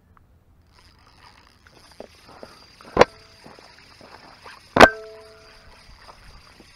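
Two sharp clanks about two seconds apart, each with a brief ringing tone, close to the microphone as the camera is handled and set down, over a faint steady high whine.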